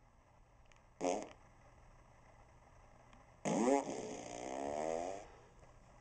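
Remote-controlled Fart Machine No. 1 novelty speaker playing recorded fart sounds: a short one about a second in, then a longer, drawn-out one starting about three and a half seconds in and lasting nearly two seconds.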